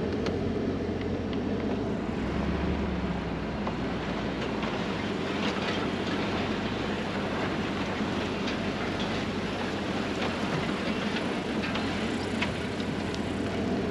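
A vehicle driving slowly along a rough dirt ranch track: steady engine and tyre noise with rattling and many small clicks and knocks.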